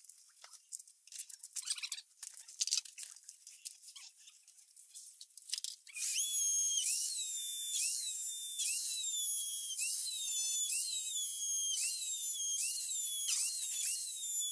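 Electric drill whining at high speed against the brickwork, its pitch dipping and recovering a little more than once a second as it is pressed in. Before it starts, about six seconds of light scraping and clicking.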